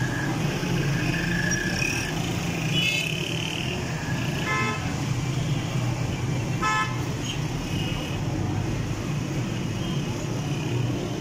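Busy street traffic: a steady din of engines and road noise with vehicle horns tooting now and then, including two quick strings of rapid beeps about four and a half and seven seconds in.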